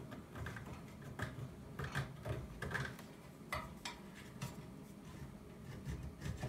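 A handful of faint, scattered clicks and light knocks with cloth rustling: hand work inside a square hole cut in an OSB wooden wall.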